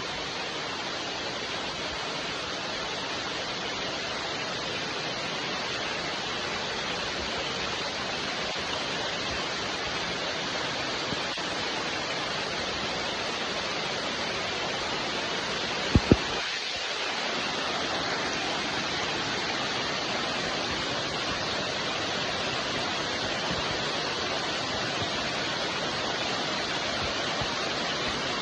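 Steady rain falling in a continuous even hiss. About halfway through come two sharp clicks a fraction of a second apart.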